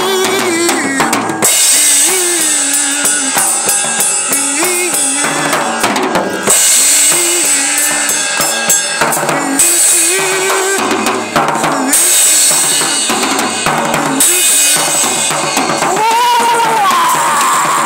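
Acoustic drum kit played hard, toms, snare and bass drum hit in quick succession, with a separate melody line sliding up and down in pitch.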